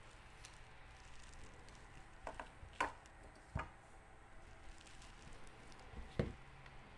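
Faint handling sounds of a trombone's brass slide tubes being pulled apart and laid on a workbench: a few light metallic clinks with a brief ring about two to three seconds in, then a couple of dull knocks near the end.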